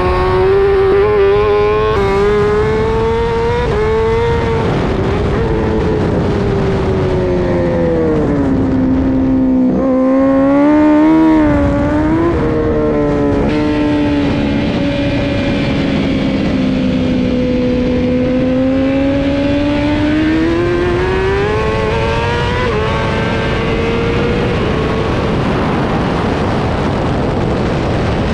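Honda Fireblade's inline-four engine at high revs on a race track, its pitch rising and falling through the corners and gear changes over a steady wind rush. The note drops about nine seconds in, then climbs back in short steps.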